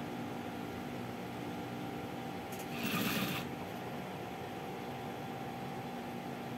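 Industrial sewing machine making a short run of stitching, under a second long, about three seconds in, over a steady hum.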